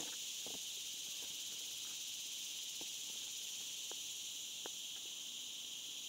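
Steady, high-pitched chirring of insects, with a few faint clicks.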